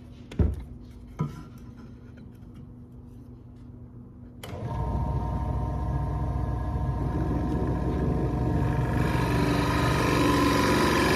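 A few knocks of wood being handled, then about four seconds in an electric drill starts and runs steadily, growing louder toward the end as a 30 mm Forstner bit bores into pallet wood.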